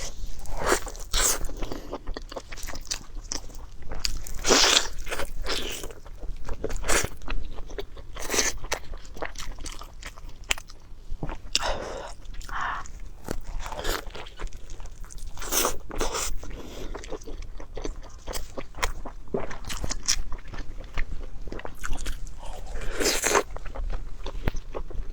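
A person eating close to the microphone: irregular bites and chewing, with many short, sharp clicks throughout.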